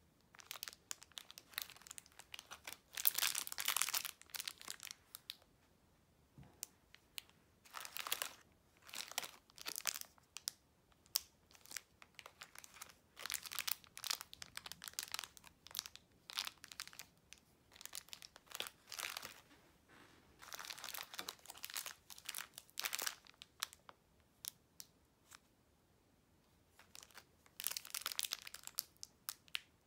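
Clear plastic wrappers of individually wrapped gummy candies crinkling as they are picked up and handled, in bursts with short pauses between.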